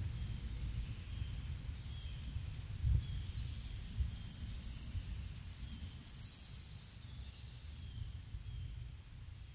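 Rural outdoor ambience: a low rumble with a couple of soft bumps, faint short chirps and a high hiss like insects, fading away near the end.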